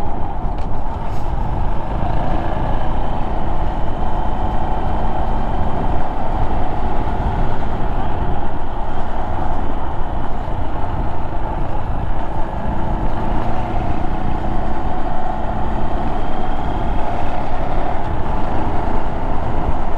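Honda Monkey 125's single-cylinder four-stroke engine running at a steady pace while riding, with road noise.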